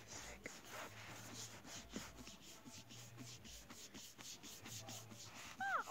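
Hands rubbing the plastic shell of a Hatchimals toy egg, a quick run of rubbing strokes. Just before the end the toy inside gives a short falling electronic chirp.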